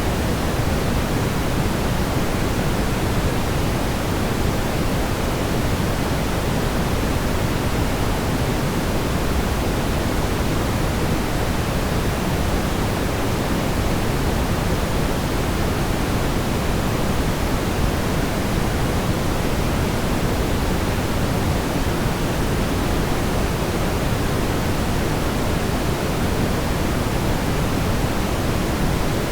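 Smoothed brown noise: an even rushing hiss, heaviest in the bass and thinning toward the top, holding at one steady level without any change.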